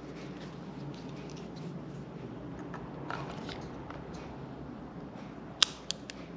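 Fingers handling the plastic body of an Insta360 X3 action camera: soft rubbing and faint taps, then a sharp click about five and a half seconds in, followed quickly by two lighter clicks.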